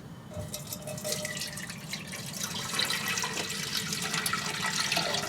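Strained sloe berry juice being poured into a cooking pan: a steady splashing pour of liquid that starts about half a second in.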